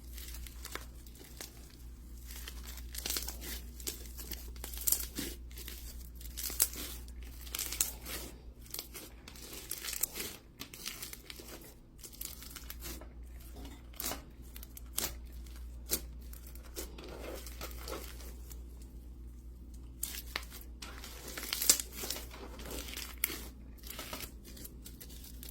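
OG Slimes Moon Rock gravel slime being squeezed and stretched by hand: an irregular run of sticky crackling with sharp clicks and pops, busiest in the first ten seconds and again near the end.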